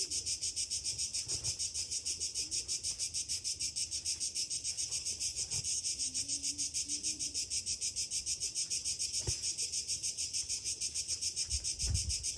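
Cicadas singing in a loud, unbroken chorus, a high buzzing with a fast, even pulse. A few faint knocks sound under it.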